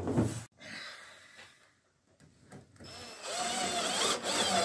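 A brief knock at the start. About three seconds in, a cordless drill-driver runs into the edge of a plywood panel for about two seconds, its motor whine wavering up and down in pitch.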